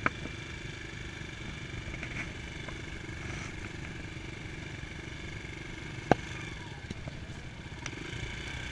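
Dirt bike engine idling steadily while the bike stands still, with two sharp knocks, one right at the start and a louder one about six seconds in.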